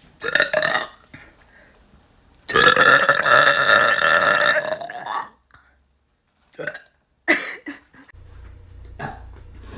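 Girls burping on purpose: a short burp, then one long, loud burp of nearly three seconds, then two brief shorter burps.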